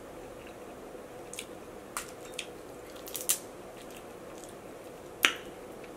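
Boiled crawfish being peeled by hand: about half a dozen short cracks and snaps as the shells break, the loudest about five seconds in.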